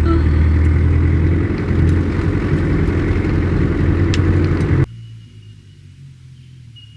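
1995 Toyota Hilux engine running steadily, heard loud from inside the vehicle. About five seconds in it cuts off abruptly to quiet outdoor air with a faint, steady high tone.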